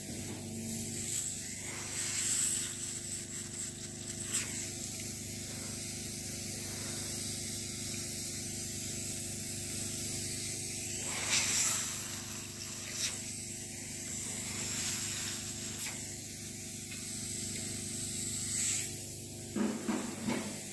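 Hot-air SMD rework tool blowing steadily while solder is worked on a circuit board: a constant airy hiss over a low hum, swelling into brief louder hisses several times.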